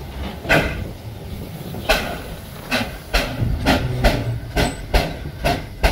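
Narrow-gauge Great Western 2-6-2 tank steam locomotive chuffing as it starts away, its exhaust beats coming closer together until they are about two a second.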